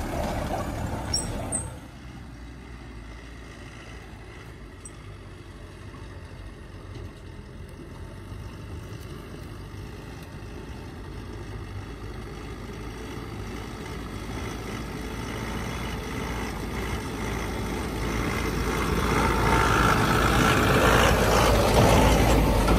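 Tata 407 4x4 mini truck's engine: loud and close for the first second or two, then after a sudden drop it is heard faintly from a distance and grows steadily louder as the truck drives toward the microphone, loudest near the end as it passes close by.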